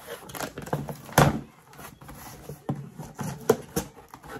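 A shipping box and its packing being opened and handled by hand: an irregular run of rustles, scrapes and knocks, the loudest about a second in.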